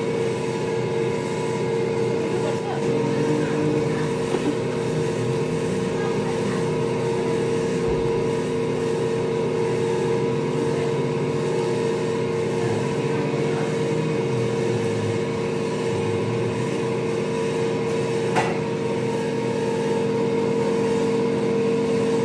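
A steady machine hum holding one constant pitch, like a motor or engine running, with low voices faint beneath it. A single sharp knock comes about 18 seconds in, fitting the large knife chopping the chicken against the wooden block.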